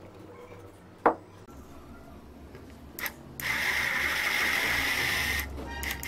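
Corded electric drill with a screwdriver bit backing a screw out of sheet metal: the motor runs steadily for about two seconds with a high whine, starting with a short blip near the middle and stopping shortly before the end, then blips briefly again. A single sharp knock comes about a second in.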